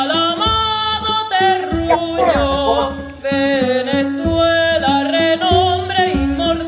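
A song: a singing voice holding long notes with vibrato over instrumental accompaniment and a steady bass line.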